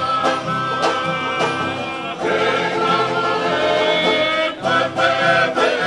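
Tongan string band accompanying a tau'olunga dance: several men singing together over strummed acoustic guitar and other string instruments, in a steady rhythm.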